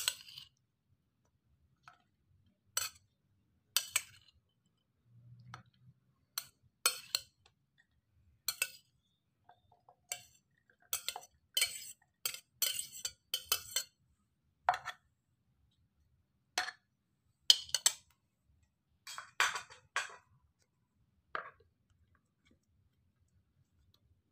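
Irregular sharp clinks and taps of a glass plate and boiled vegetables against a food chopper's bowl as boiled green chilies and shallots are tipped in, about two dozen separate knocks with pauses between.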